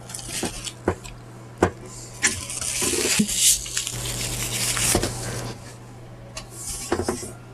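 Small objects being handled: a few light clicks and knocks, then a rustling hiss for about three seconds in the middle.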